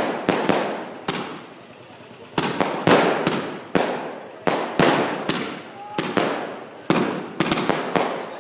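Aerial firework shells bursting overhead in quick, irregular succession: more than a dozen sharp bangs, each fading away in a short echoing tail.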